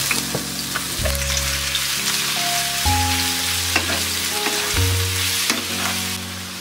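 Julienned bottle gourd sizzling in hot oil in a frying pan as it is stir-fried with a wooden spatula, with a few light taps and scrapes of the spatula.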